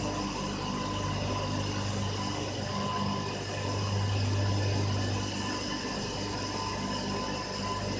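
Turbine-generator sets running in a thermal power station's turbine hall: a steady machine drone with a strong low hum and several steady high-pitched whining tones over a wash of noise.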